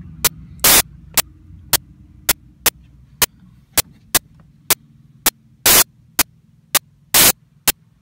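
Sharp electronic clicks about twice a second, with three longer crackling bursts, over a low electrical hum and static that fade away: a recording glitch rather than a real-world sound.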